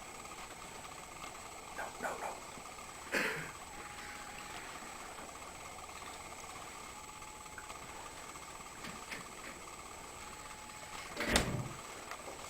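Two dull thumps over a steady background hum, the second, near the end, louder and deeper. In between come three faint short beeps about three seconds apart.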